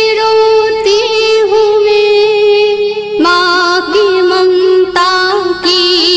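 A woman singing an Urdu nazm in naat style, drawing out long held notes with bends and ornaments, a new phrase starting about three seconds in, over a faint steady backing drone.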